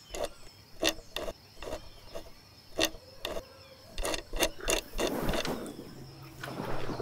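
The focusing mechanism of a Pony Premo No. 3 wooden folding plate camera being adjusted: about nine sharp mechanical clicks, unevenly spaced, then a brief sliding rub about five seconds in.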